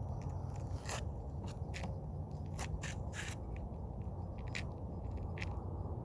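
A string of short, sharp clicks and scrapes from handling the air tank's fill fittings and valve, over a steady low rumble.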